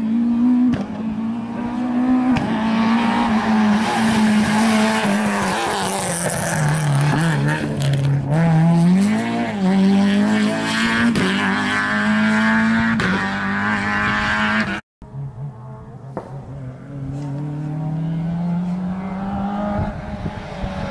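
Rally car engines at full throttle: a first car revs hard, its note rising and falling through gear changes, with a lift and a sharp climb again about eight seconds in. After a brief dropout, a Volkswagen Golf Mk2 rally car approaches with its engine note climbing steadily.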